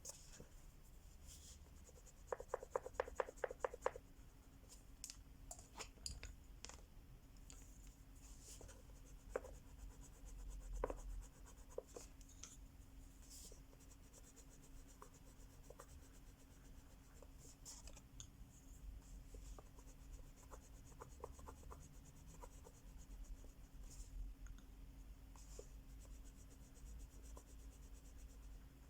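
Crayola wax crayon being rubbed and scratched across a colouring book page in short colouring strokes. About two seconds in there is a quick, louder run of back-and-forth strokes, about five a second.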